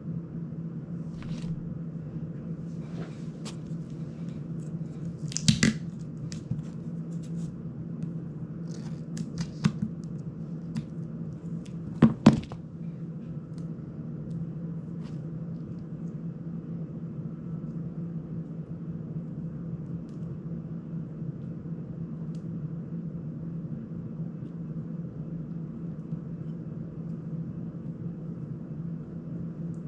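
Handling noises from the plastic prop guards and frame of a GEPRC CineLog35 drone being worked on by hand: a few sharp clicks and snaps, loudest about five and twelve seconds in, with a cluster of smaller ones around ten seconds. A steady low hum lies underneath throughout.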